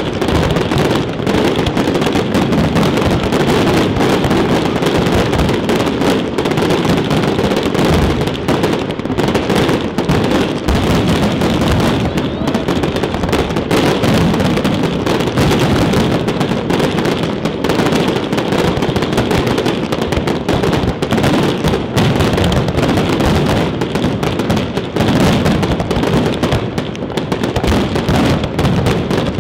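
Aerial fireworks display: many shells bursting in a dense, unbroken barrage of bangs, with no pause.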